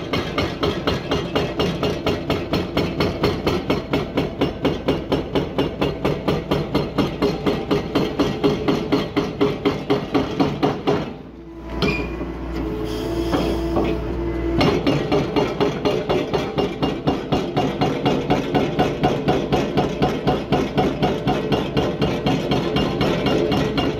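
Demarec DFX-32 hydraulic breaker hammering concrete in rapid, even blows, about four a second. It pauses for a few seconds just before halfway, leaving the steady sound of the excavator's engine and hydraulics, then starts hammering again.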